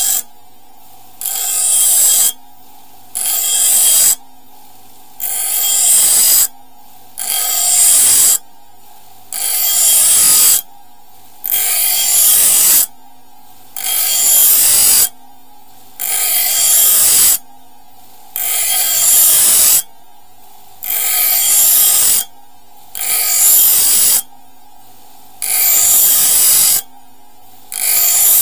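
Dnipro-M bench grinder running with a steady hum while the steel blade of an Ontario Rat-1 folding knife is pressed to the grinding wheel in repeated passes: a loud grinding hiss about every two seconds, each lasting about a second. The wheel is taking metal off the broken tip to reshape and sharpen it.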